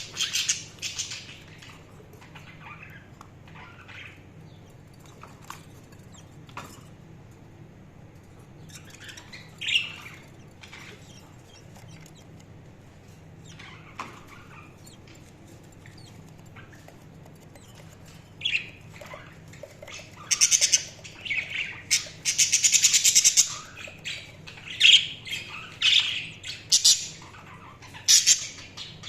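Budgerigars chirping and squawking: scattered calls at first, then from about eighteen seconds in a busy run of chirps and squawks, including a rapid buzzing call lasting a second or so.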